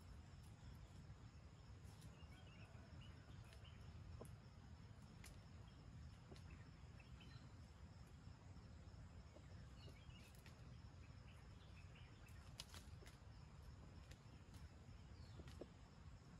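Near silence: faint outdoor ambience, with a steady high insect drone, a few faint bird chirps and scattered light clicks over a low rumble.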